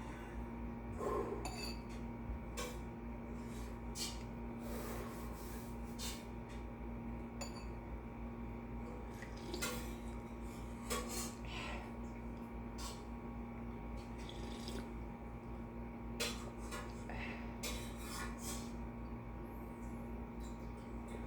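Scattered small clinks and taps of dishes and utensils while someone eats and drinks bone broth, over a steady electrical hum.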